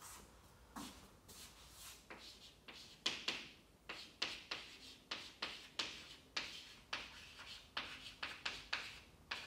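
Chalk writing on a classroom chalkboard: a quick series of sharp taps and short scraping strokes as letters are drawn, coming a few a second from about three seconds in.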